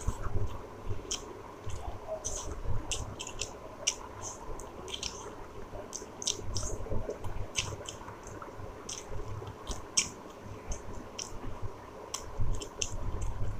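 A man chewing chicken curry meat close to the microphone: irregular wet mouth clicks and squishing through the whole stretch.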